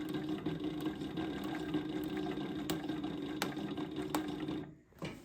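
SEWPRO 8360B post-bed needle-feed sewing machine stitching at a steady speed, then stopping near the end.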